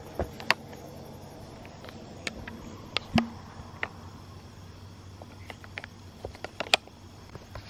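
A welded-wire fence panel or gate being handled, giving scattered sharp clicks and clinks with one heavier knock about three seconds in, over a steady faint background hiss.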